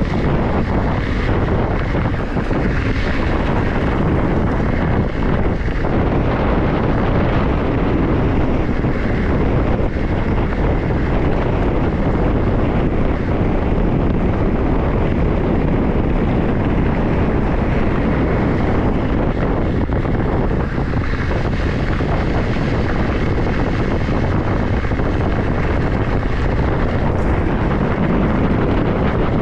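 Wind rushing over an action camera's microphone on a mountain bike at speed, with a steady rumble of tyre and road noise beneath it.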